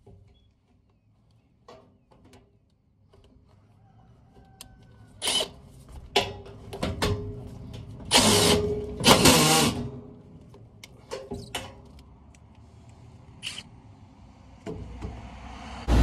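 Cordless drill driving screws into the sheet-metal blower housing in short runs, the longest two about eight and nine seconds in, among light metallic clicks and knocks.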